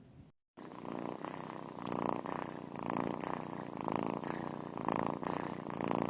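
Domestic cat purring loudly, close to the microphone, swelling and easing about once a second with its breathing. It starts about half a second in.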